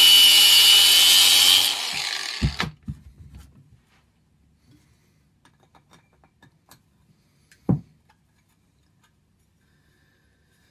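Angle grinder cutting into an aluminium alloy inlet manifold with a high, steady whine for about two seconds, then switched off and spinning down. A few knocks follow, and a single thump at about eight seconds.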